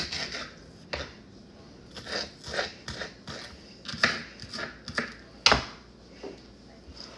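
Food-prep handling at a kitchen counter: a string of irregular light clicks, taps and crunches, with one sharper knock about five and a half seconds in.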